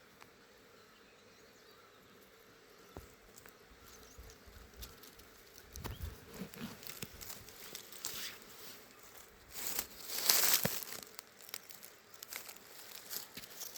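Quiet outdoor ambience with scattered rustling and clicking noises, loudest in a short rough burst of rustle about ten seconds in.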